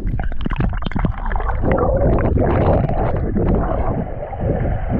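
Swimming-pool water splashing and sloshing against the camera at the surface, then going muffled and gurgling as the camera goes under the water about two seconds in.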